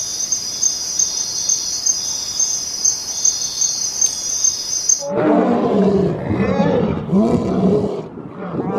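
Steady high-pitched cricket chirping that cuts off suddenly about halfway through. A lion takes over, roaring in a series of calls that rise and fall in pitch.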